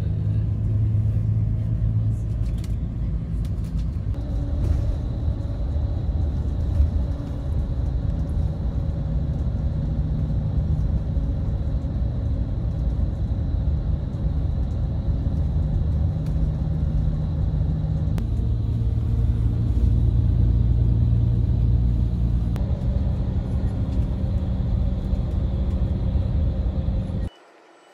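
Engine drone and road rumble heard from inside a moving coach bus, steady throughout, with the engine note shifting a few times. It cuts off suddenly near the end.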